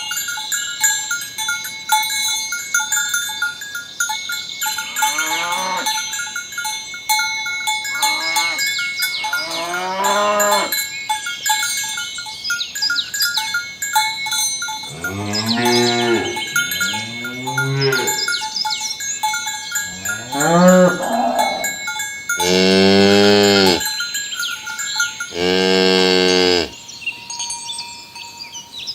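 Cows mooing again and again, about nine calls, some short and bending in pitch, the last two long and the loudest near the end. A thin steady ringing tone sits behind the first two-thirds.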